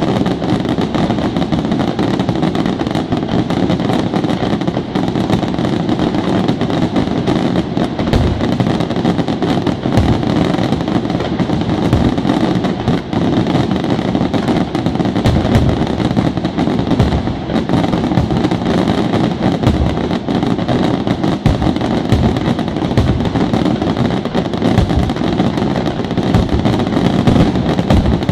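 Aerial fireworks shells bursting in a dense, unbroken barrage. The bangs run together into a steady rumble, with sharper single reports standing out every second or two.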